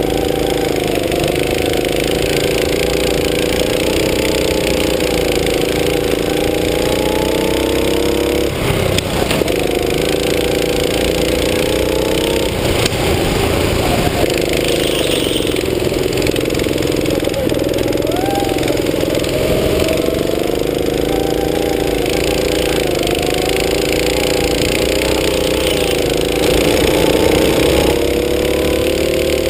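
Go-kart engine running hard under the driver, its pitch repeatedly rising and falling as the throttle is opened on the straights and eased for the corners.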